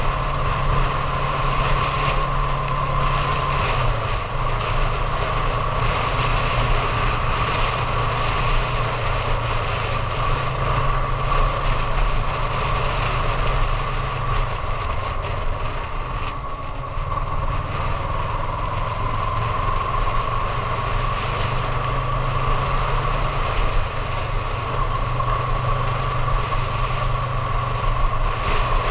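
Motorcycle engine running steadily while riding, mixed with an even rush of wind noise; it eases off slightly a little past halfway, then picks up again.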